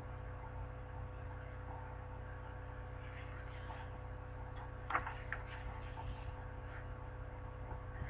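Quiet room tone under a steady low electrical hum, with a single sharp click or knock about five seconds in and a few fainter small sounds around it.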